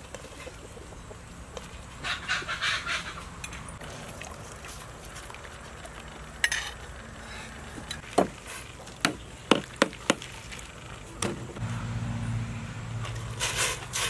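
Food-preparation handling sounds: rustling and wet splashing, with a run of sharp clicks or knocks about halfway through, as sliced banana flower is squeezed and mixed in a steel bowl of water. A low hum comes in near the end.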